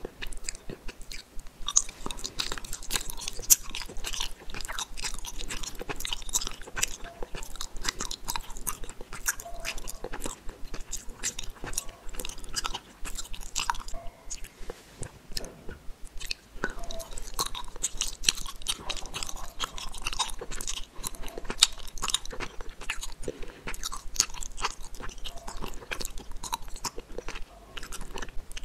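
Close-miked chewing of gummy candies: a dense run of small clicks from the mouth working the soft jelly, easing off briefly about halfway through before the next piece is chewed.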